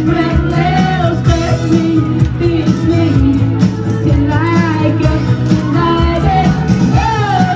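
A woman singing amplified through a microphone and PA speakers, over a backing track with a steady beat and bass.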